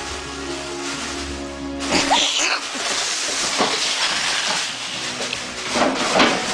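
Background music for about two seconds, then a dense stretch of crinkling and scrabbling from a plastic bag with a cat caught in it.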